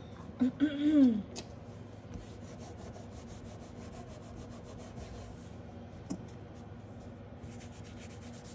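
About half a second in, a short hummed vocal sound that rises and then falls in pitch. After it, a pad is rubbed over a metal nail-stamping plate in a steady low scratching, with a small click about six seconds in.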